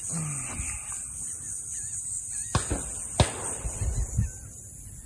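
Two gunshots from a nearby firearms range, a bit over half a second apart about two and a half seconds in, then a softer shot about a second later. A steady high hiss sits under them.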